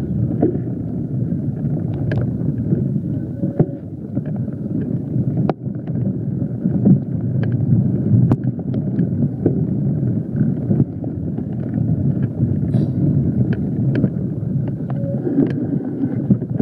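Wind rumbling on the microphone and mountain bike tyres rolling over a dirt trail while riding, with frequent sharp clicks and knocks from the bike.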